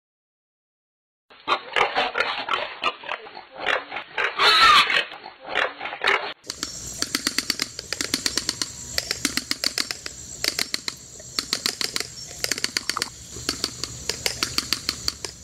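Collared peccary sounds: after a second or so of silence come about five seconds of rough, harsh calls, then a long run of rapid sharp clicks, several a second.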